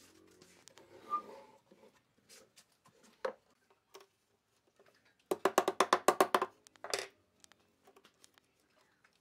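A quick run of sharp, ringing taps, about ten a second for just over a second, then one more, from work on small steel hinges set into pine boards. Small knocks and handling sounds before it.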